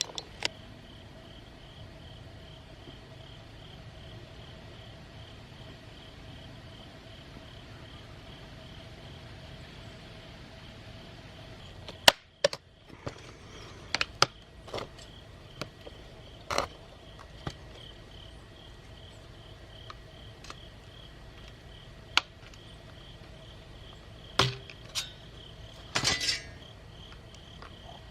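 Crickets chirping steadily under a faint steady hum, with about a dozen sharp clicks and clatters of metal and plastic monitor parts being handled. The loudest clatters come about halfway through and again near the end.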